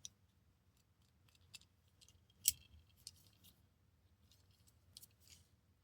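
Faint scattered clicks and crinkles of a plastic blister pack being worked open to free a diecast car, with one sharper snap about two and a half seconds in.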